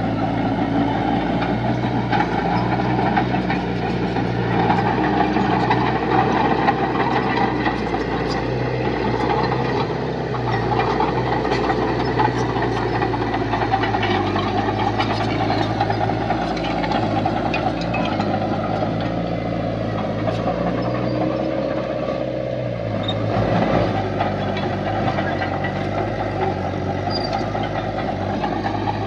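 Heavy construction machinery's diesel engine running steadily under work, with a small pitch shift about 23 seconds in and scattered short knocks.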